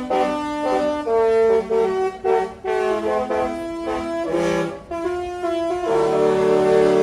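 A Disney cruise ship's musical horn playing a tune as a quick run of chorded notes, then holding a long chord near the end.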